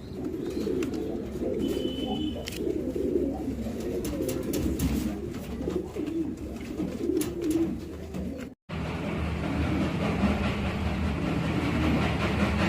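Pigeons cooing, low and warbling, with a few light clicks. About eight and a half seconds in, the audio cuts abruptly to a steady mechanical rumble with a hum.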